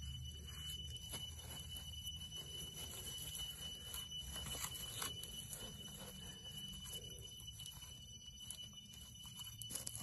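Faint crackling and ticking from a wood fire's embers, with soft rustling as a bunch of green shoots is moved over the fire. A steady high-pitched ringing tone runs underneath.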